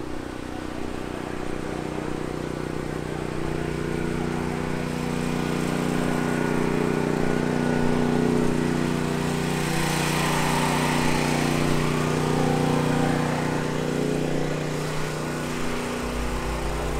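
An engine running at a steady speed, one unchanging pitch, growing louder a few seconds in and easing off near the end.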